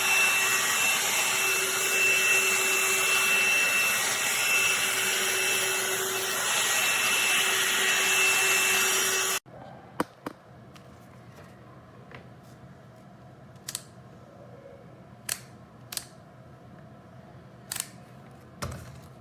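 Hot air brush hair dryer running, its fan blowing steadily with a thin high whine, then cutting off suddenly about nine seconds in. Scattered light clicks and taps follow.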